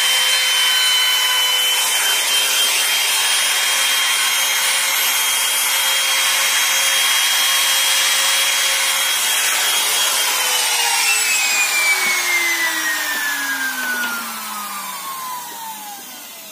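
Electric trim router running and cutting into a wooden board, its motor whining at a steady pitch over the noise of the bit in the wood. About ten seconds in it is switched off, and the whine falls steadily in pitch and fades as the bit spins down.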